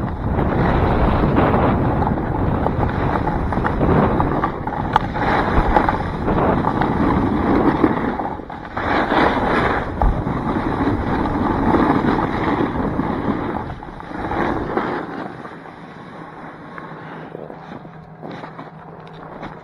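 Wind rushing over the microphone of a snowboarder's point-of-view camera, with the board scraping and sliding over snow on a fast run. The rushing falls away sharply about fifteen seconds in as the rider slows, leaving a faint low steady hum.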